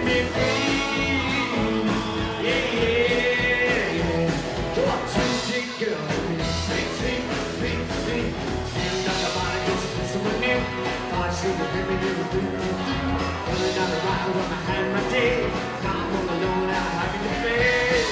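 Live rockabilly band playing at full volume: acoustic and electric guitars, upright double bass and drum kit, with a man singing lead.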